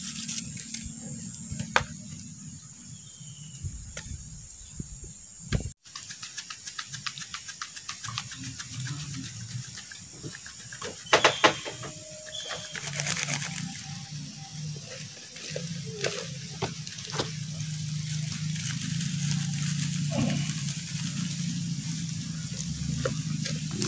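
Wood fire crackling under a wire grill basket of tilapia, with dense small pops and clicks and a few louder knocks from handling.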